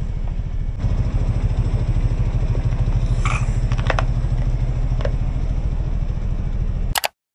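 Peugeot car engine idling with a steady low rumble while its tyre rolls slowly over small objects, giving a few sharp cracks and pops about three to four seconds in and again about five seconds in. Near the end the engine cuts off suddenly and a brief ding sounds.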